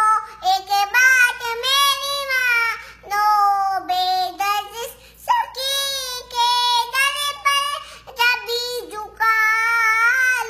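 A young girl singing an Urdu devotional song unaccompanied, in long held phrases with short pauses for breath between them.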